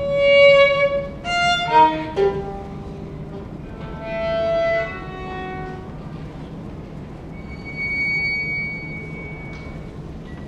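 Contemporary chamber music from a quartet of violin, cello, clarinet and piano, the violin leading with held notes: a loud accented note at the start, a quick flurry of notes about two seconds in, and a long, thin high note near the end over a steady low tone.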